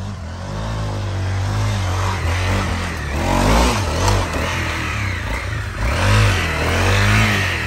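Honda CRF trail bike's single-cylinder engine revved hard under load on a steep, muddy climb. The revs surge and drop back about three times, loudest about halfway through and near the end.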